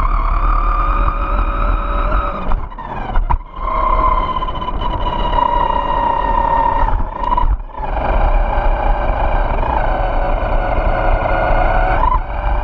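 Electric motor and gear whine of a Vaterra Glamis Uno RC buggy at speed, over the rumble of its tyres on asphalt. The whine drops away briefly around three and seven seconds in as the throttle eases, and jumps up in pitch near the end.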